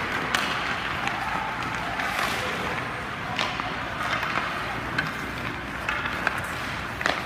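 Ice hockey skates scraping and carving on rink ice, with a few sharp clicks of sticks striking pucks.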